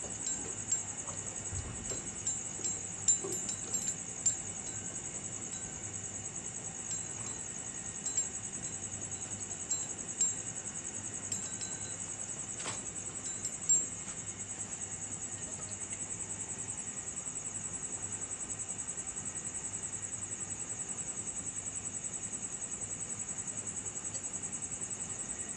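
Insects trilling steadily in a continuous high, finely pulsing chorus, with scattered light clicks and taps during the first half.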